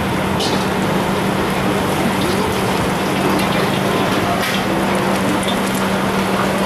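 Egg frying in hot oil in a wok over a gas burner: a steady, loud sizzle with a constant low hum underneath.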